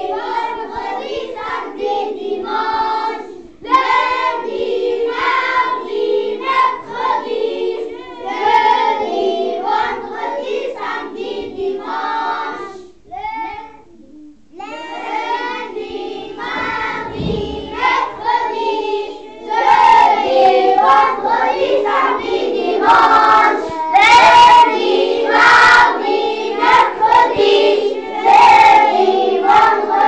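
A group of young children singing together, a song about the days of the week. The singing breaks off briefly about halfway through and then comes back louder.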